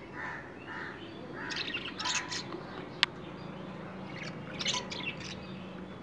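Small caged parrots, budgerigars and cockatiels, chirping in short bursts, about a second and a half in and again near five seconds. A single sharp click about three seconds in.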